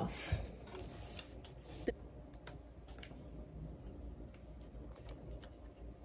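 Faint, scattered clicks and light taps of a handheld flashlight being handled, with one sharper click about two seconds in.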